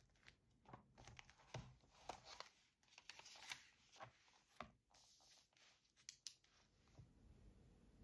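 Quiet paper handling: a hardcover notebook being opened and its pages turned and smoothed by hand, a string of short rustles and flicks, thickest in the middle, with a couple of small sharp clicks about six seconds in.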